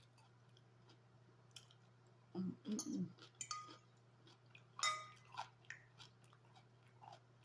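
Close-up chewing of a mouthful of salad: irregular crisp crunches and wet mouth clicks, the loudest about a second and a half in, near three seconds, and near five seconds.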